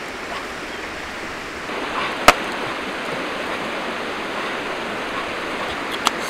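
Steady rush of flowing stream water, with one sharp crack about two seconds in, the loudest sound, and a smaller click near the end. A faint high steady tone joins from just before the crack.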